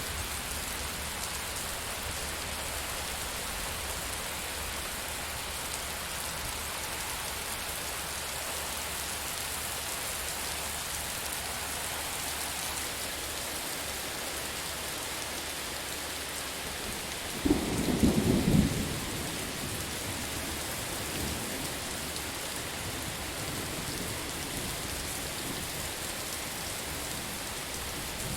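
Steady heavy rain, with a sudden loud crack and rumble of thunder about two-thirds of the way through that lasts a couple of seconds and then dies back into the rain.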